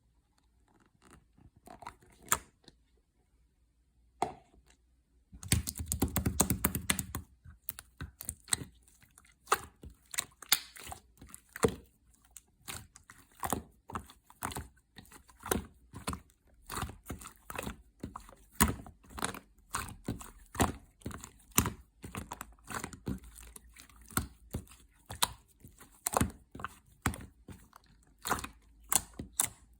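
Slime being squished, pressed and stretched by hand, giving rapid, irregular sticky clicks and pops. Only a few scattered clicks at first, then dense from about five seconds in.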